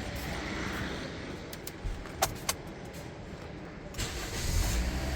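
Toyota Corolla Altis 1.6's four-cylinder engine just started and running at a raised idle, as it does right after a battery disconnect to reset the throttle body. A few short clicks come about two seconds in, and the engine gets louder about four seconds in.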